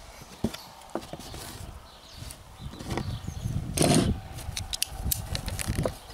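Hands picking up and handling aluminium double pulleys and carabiners on a wooden board: scattered light clicks and knocks, with a louder knock about four seconds in.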